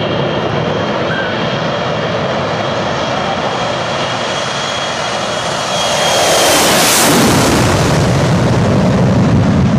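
Four-engine jet airliner taking off at full thrust: a steady jet roar with a faint high whine. The roar swells to its loudest as the plane passes close overhead about seven seconds in, then a deep rumble follows as it climbs away.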